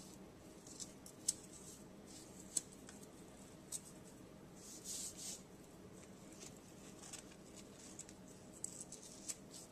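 Hands rubbing a dry spice rub into raw racks of pork ribs on aluminium foil: faint rubbing and rustling with scattered small clicks and crinkles, the sharpest just over a second in and again about two and a half seconds in, and a brief rustle about five seconds in.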